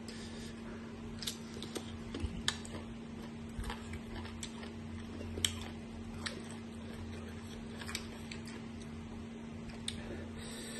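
People chewing crisp raw green mango slices: scattered sharp crunches and clicks at irregular intervals, over a steady low hum.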